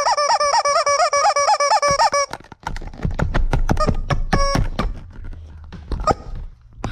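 Several rubber chickens squeezed over and over, their squawks overlapping rapidly, each rising and falling in pitch, for about two seconds. Then a string of clicks and knocks, with one short squawk about four and a half seconds in.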